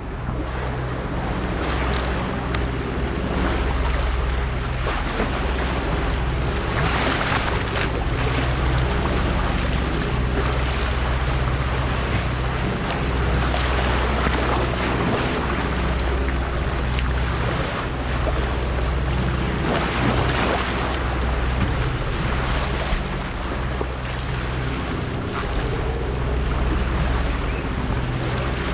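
Boat engine running steadily under way, with water rushing along the hull and wind on the microphone; the rush swells now and then.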